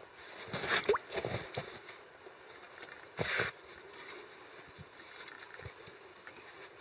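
Water and floating ice slush sloshing and gurgling in a chopped ice hole as a pole pushes a gill-net jigger under the ice. There are short splashes and scrapes about a second in and a louder splash a little after three seconds.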